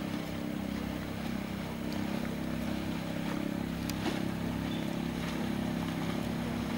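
Motorboat engine running with a steady, even drone, with a couple of faint clicks.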